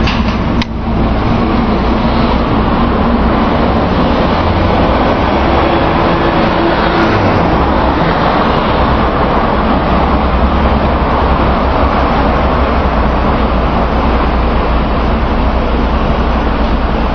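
Renault 19 16v driving, with its engine and road noise at a steady level throughout.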